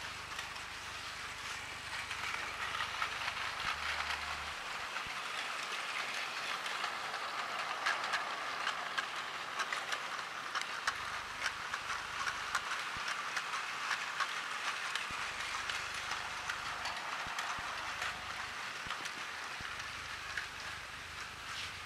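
Battery-powered motorized toy train running on plastic track: a steady small-motor whir with many small clicks from the wheels over the track. It grows louder about two seconds in and eases a little near the end.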